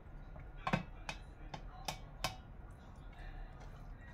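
A spatula tapping and scraping against a stainless steel steamer pot while sticky glutinous rice is spread inside it: about five sharp knocks in the first two and a half seconds, the first the loudest.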